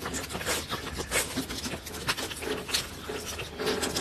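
Dog licking at a squeeze-tube treat, a quick, irregular run of licks and mouth smacks.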